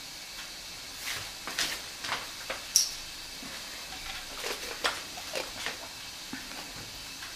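A scattered series of faint clicks and light taps as small kitchen items are handled on the counter, one of them with a brief high ring, over a faint steady hiss.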